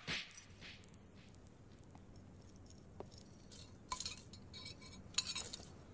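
The echoing tail of a film slap sound effect: a high, thin whine, like ears ringing, fades away over the first three seconds. After that a drinking glass gives a few faint clinks.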